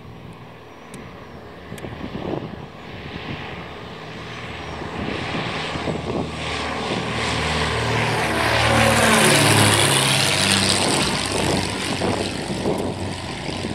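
Britten-Norman Islander's twin propeller engines on landing approach, growing louder as it comes in low and passes overhead about nine to ten seconds in, the drone then dropping in pitch as it goes by.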